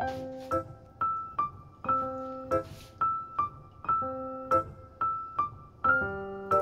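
Background music: a light, bouncy keyboard melody in electric-piano tone, notes struck at an even pace of about two a second.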